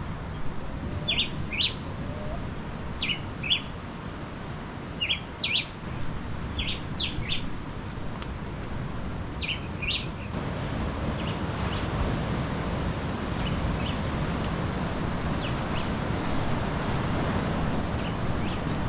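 Small birds chirping in quick clusters of two or three short, high notes, over a steady rush of surf and wind. About ten seconds in, the chirps turn faint and the surf noise grows louder.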